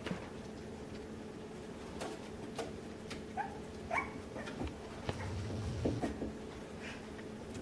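Miniature American Shepherd puppies giving a few short, high yips and whimpers about three to four seconds in and again near six seconds, among scattered light clicks.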